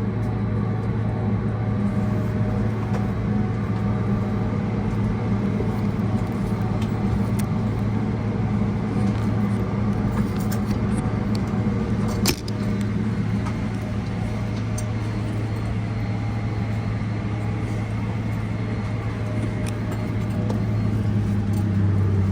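Steady cabin hum inside a Boeing 777-300ER taxiing after landing, its GE90 engines at idle, with a single sharp click about halfway through. The low tone of the hum drops slightly near the end.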